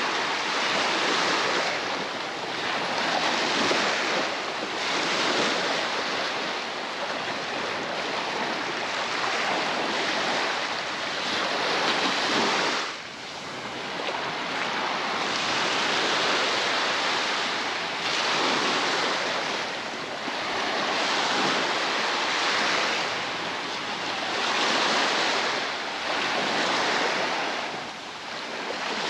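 Baltic Sea waves washing onto the beach: a continuous surf noise that swells and fades every two to three seconds as each wave breaks and runs out.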